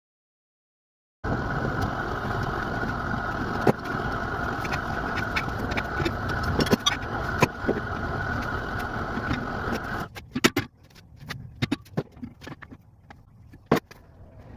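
A blacksmith's forge running with a steady rushing noise, crossed by sharp metal clinks. The forge noise stops about ten seconds in, leaving scattered clinks and clanks of metal.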